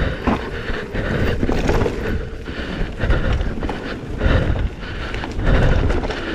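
Propain Rage 3 CF downhill mountain bike running fast down a rough dirt trail: tyres rumbling over the ground with frequent knocks and rattles from the bike, and wind buffeting the microphone.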